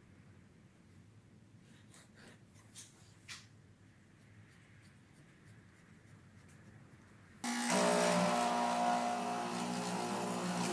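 A few faint pencil scratches on wood. Then, about seven seconds in, a benchtop hollow-chisel mortiser comes in loud: a steady motor hum while its chisel bores a square mortise into the board.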